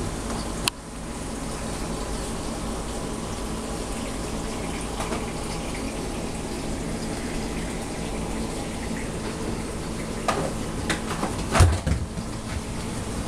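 Reef aquarium's circulating water running steadily, like a tap filling, over the low hum of its pumps. A few short knocks come near the end.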